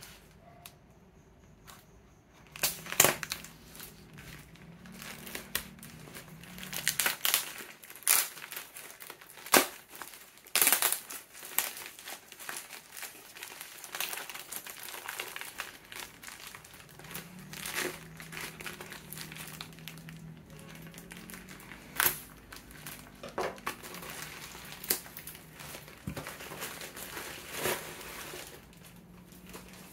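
Plastic packaging crinkling and rustling in irregular sharp crackles as a plastic-wrapped parcel is cut and torn open and an inflatable air-column cushion bag is handled. It starts a couple of seconds in.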